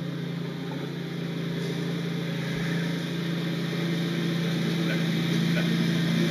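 Lawnmower engine running steadily, a constant hum that grows slightly louder toward the end.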